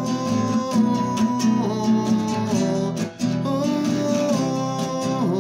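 A strummed acoustic guitar accompanying a man's voice, which holds long wordless notes that slide between pitches.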